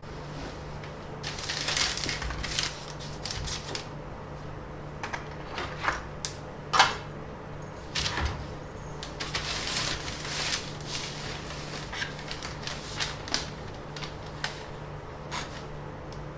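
Irregular clicks, taps and rustles of objects being handled, the sharpest about seven seconds in, over a steady low hum.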